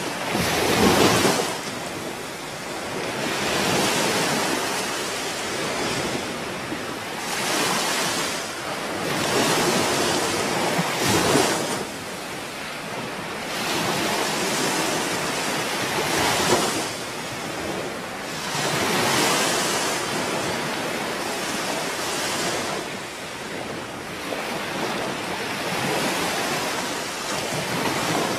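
Ocean surf: waves washing in one after another, the rushing noise swelling and ebbing every two to four seconds.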